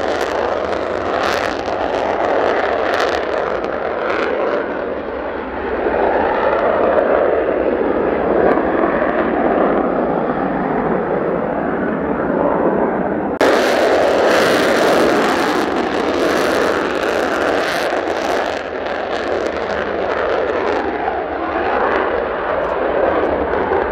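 Mitsubishi F-2's single General Electric F110 turbofan at full afterburner during takeoff and climb-out: a loud, continuous jet roar laced with sharp crackling. About 13 seconds in, the sound cuts suddenly to another afterburner takeoff that starts out just as loud.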